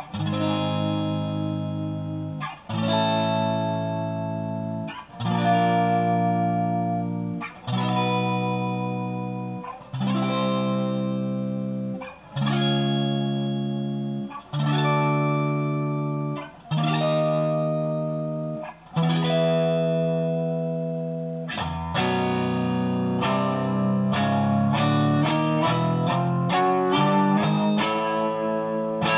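Maskandi-style instrumental music on a plucked, effected guitar sound: a chord is struck and left to ring about every two seconds, then about 22 seconds in it changes to a quick run of single picked notes.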